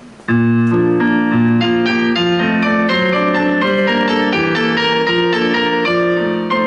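Piano music starts suddenly about a third of a second in and plays on steadily in chords over a bass line: the instrumental introduction to a romance, before the singer comes in.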